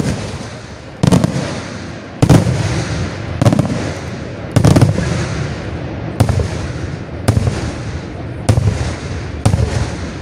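Aerial firework shells bursting in a steady sequence, a sharp bang about once a second, each followed by a fading echo.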